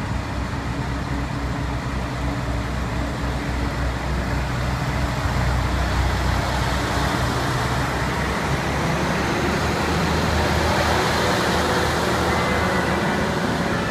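Kyoto Tango Railway KTR700 diesel railcars pulling away and passing close by: a steady low diesel engine note with wheel and rail noise building to a louder rush, and a thin high squeal joining near the end.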